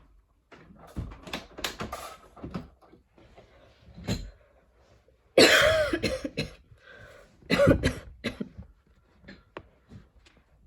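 A woman coughing from a lingering cough in several separate bouts: a run of quick coughs about a second in, a single cough near four seconds, then the two loudest, voiced coughing fits around five and a half and seven and a half seconds, and a couple of small coughs near the end.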